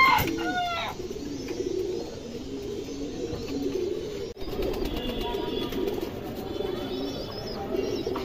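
Domestic pigeons cooing, a steady overlapping run of low, wavering coos.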